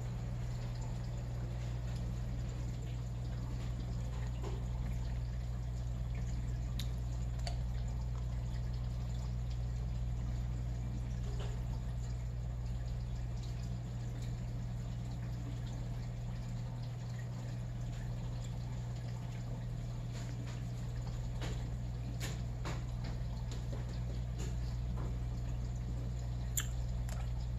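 Saltwater aquarium's filtration running: a steady low pump hum with water trickling and scattered faint drips.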